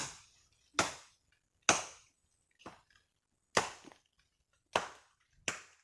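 Wood being chopped with a blade: about seven sharp strikes, roughly one a second, one of them faint.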